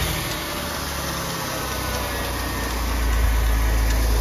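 2003 Porsche Boxster's flat-six engine running just after a start, settling into a steady idle drone that grows louder about three seconds in. The engine has just been reinstalled with a new serpentine belt and is running well.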